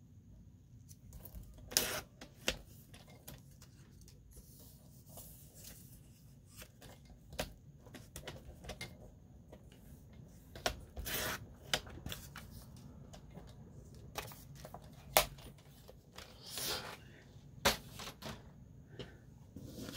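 Paper being cut on a Fiskars paper trimmer and handled on a tabletop: scattered sharp clicks and taps with short rustling slides of paper.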